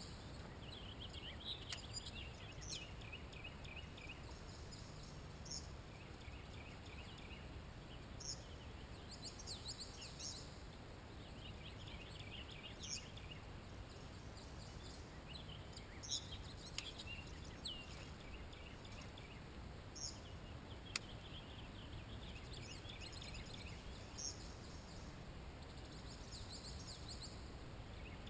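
Several songbirds singing on and off, short chirps and rapid trills, over a low steady background noise, with a single sharp click about three quarters of the way through.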